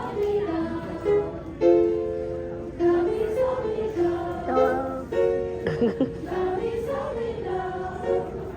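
Background music: a light tune of plucked-string notes, each starting sharply and ringing briefly.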